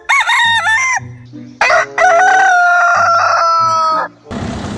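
A rooster crowing: short clucking calls in the first second, then one long crow from about a second and a half in, held for over two seconds and falling slightly in pitch.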